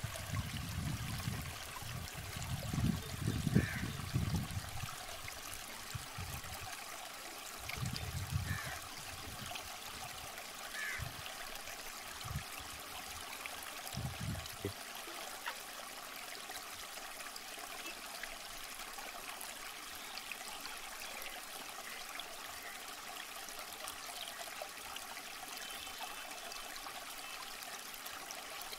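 Water in a small concrete-lined irrigation canal flowing through a sluice with a steady babbling rush. Low rumbles come and go during the first half, then stop.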